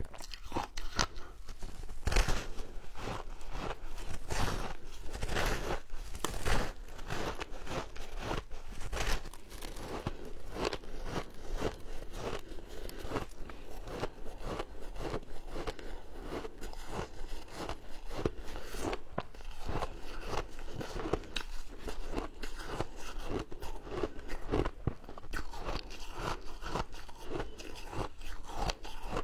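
Biting and chewing a frozen chunk of colourful shaved ice: a dense, unbroken run of crisp crunches, with louder bites about two and six seconds in.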